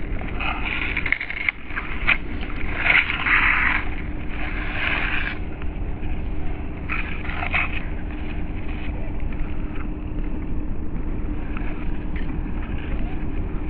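Small electric motor and gearbox of a WPL C24 Toyota Hilux RC crawler running with a steady whine as it climbs a dirt bank. Several short bursts of scraping and rustling in the first half, from tyres and grass.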